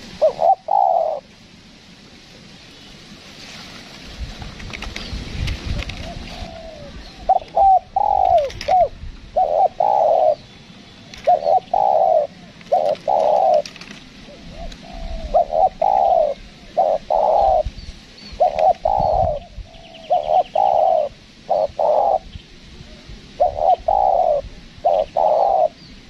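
Spotted dove cooing repeatedly in short phrases of two or three low coos. After the first phrase there is a gap of about six seconds, then a phrase comes every second or two.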